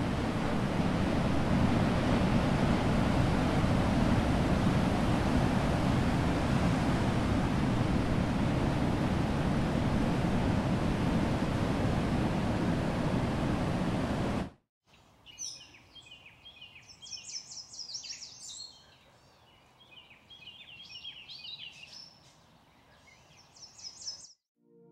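Ocean surf breaking on a rocky shore, a steady loud rush of waves that cuts off suddenly about fifteen seconds in. After that, small songbirds chirp and sing in quick repeated phrases over a faint background.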